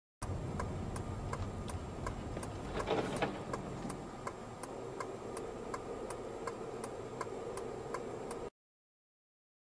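A car's turn-signal flasher clicking steadily, about two clicks a second, inside the car. There is a short, louder rush of noise about three seconds in, and the clicking stops abruptly near the end.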